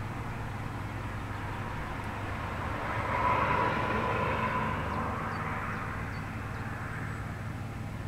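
Background vehicle noise: a passing vehicle swells to a peak about halfway through and fades away, over a steady low hum.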